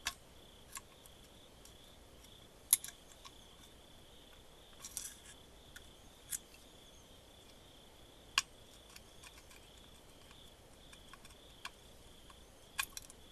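Scattered sharp clicks and small taps, a few seconds apart, from small parts and tools being handled while the multimeter is taken apart. Under them runs a faint, steady, high cricket chirping.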